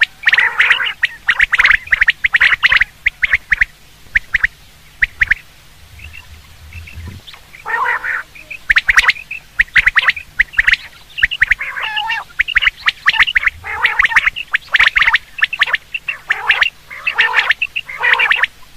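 Common quail calling: bursts of short, sharp repeated notes, with a lull about six seconds in.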